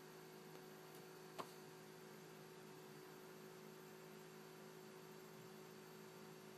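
Near silence: a faint steady electrical hum, with one faint short click about a second and a half in.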